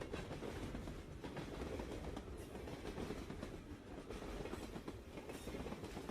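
Train wheels clattering over the rail joints with a steady rumble beneath.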